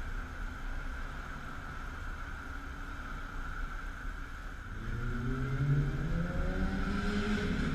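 A car on the street below accelerating from about five seconds in, its engine note rising steadily. Underneath is a steady low rumble and hiss.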